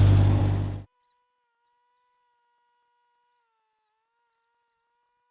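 Ditch Witch R65 trencher's engine running loud and steady, with a strong low hum. Under a second in the sound cuts off abruptly. What follows is near silence with only a faint, steady high tone.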